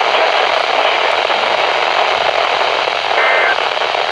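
Weather radio receiver hissing with static from weak reception. A brief high two-note tone comes through about three seconds in.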